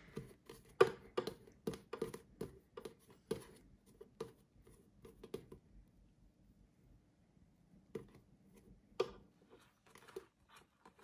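Metal offset spatula spreading and smoothing whipped cream on a cake, a run of short, quiet scrapes and taps that thins out after about five seconds, with a few more near the end.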